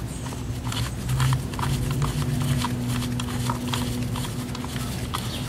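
Irregular light clicks and ticks of metal on metal as the blade nut of a handheld power saw is tightened by hand, over a low steady hum.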